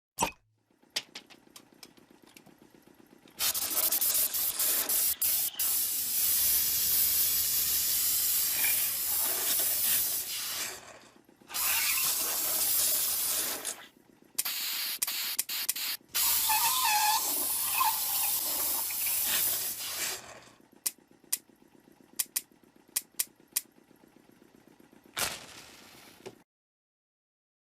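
Loud static hiss in several long bursts that switch on and off abruptly, over a faint low hum with scattered clicks, then one sharp click near the end.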